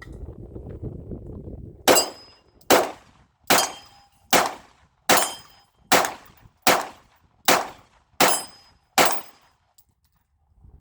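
Canik pistol firing ten evenly paced shots, a little under a second apart, in a steady string.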